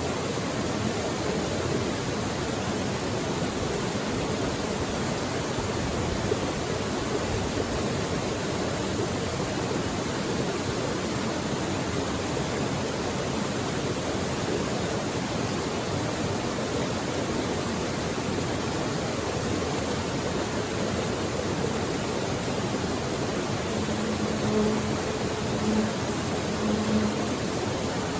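Mountain creek flowing, a steady even rush of water, with a few short low tones near the end.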